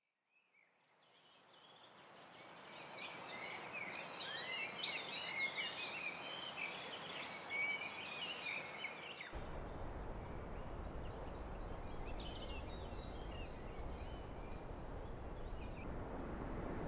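A chorus of birds chirping and calling, fading in from silence. About nine seconds in, a steady low rumble starts suddenly beneath the fainter birdsong and grows louder near the end.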